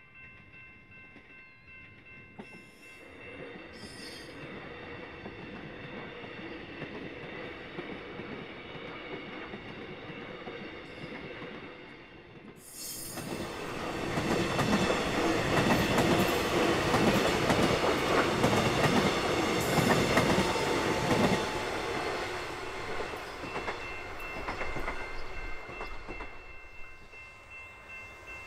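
Melbourne Metro X'Trapolis 100 electric suburban train approaching, then passing close by from about 13 seconds in with loud rumble and wheel-on-rail noise, fading away over the last several seconds.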